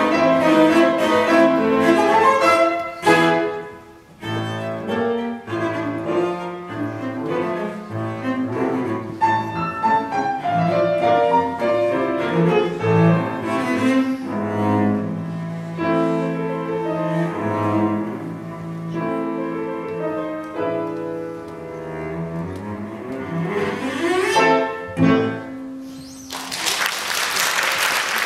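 Cello with piano accompaniment playing the closing bars of a classical piece, ending with a quick rising run and a held final chord. Audience applause breaks out near the end.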